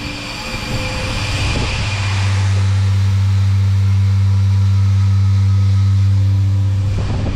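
Grain bin aeration fan switched on briefly: a loud, steady low hum that builds up about two seconds in, holds, and dies away shortly before the end.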